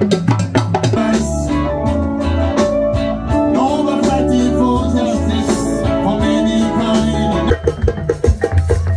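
Music: a quick, even percussion beat gives way about a second in to held melodic notes over a bass line, and the percussion beat returns near the end.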